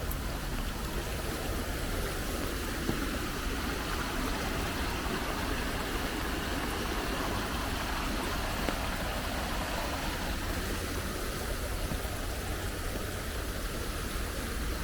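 Steady rain falling as a continuous even hiss, with a low rumble underneath.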